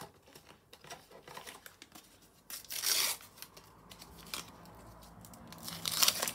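A Panini sticker packet being torn open by hand, the wrapper ripping loudly about two and a half seconds in and again near the end, with crinkling and rustling in between.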